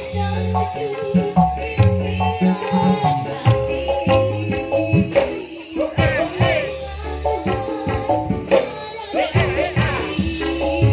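Loud dance music played over a sound system, with a heavy repeating bass line, percussion, and a singing voice in places.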